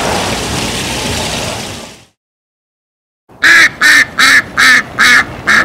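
White crested domestic duck quacking loudly, six quacks in quick succession at about two and a half a second, starting after a short gap of silence. Before the gap there is a steady hiss of background noise.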